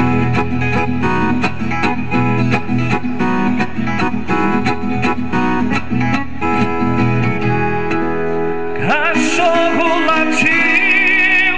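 Sertanejo music played on a Yamaha keyboard: a fast run of plucked, guitar-like notes over a steady bass. About nine seconds in, a lead line slides up in pitch and wavers.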